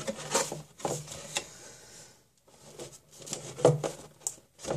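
A product box and its packaging being opened and handled: irregular rustling with light clicks and knocks, and a brief pause about two seconds in.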